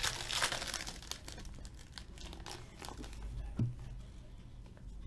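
Foil wrapper of a trading card pack being torn open and crinkled in the hands, densest in the first second, then thinning to scattered fainter crinkles.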